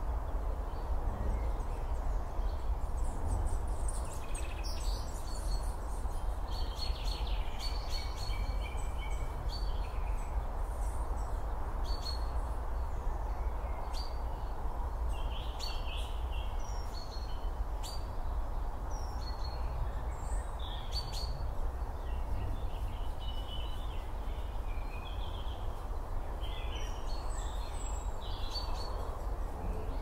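Outdoor meadow ambience: wild birds give scattered short chirps and calls throughout, over a steady low rumble and hiss.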